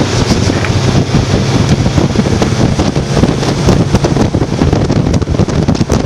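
Wind buffeting the microphone on a moving motorboat, over the steady low drone of the boat's engine and some splash of water on the hull.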